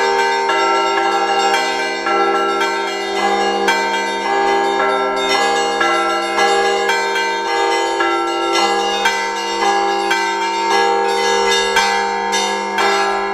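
Russian Orthodox church bells rung together by hand in a continuous peal. Rapid strikes on the small high bells ring over the steady hum of the larger, lower bells.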